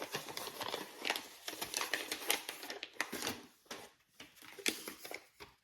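Plastic and paper packaging crinkling and rustling with quick irregular clicks and taps as small kit parts are unpacked by hand; it stops abruptly near the end.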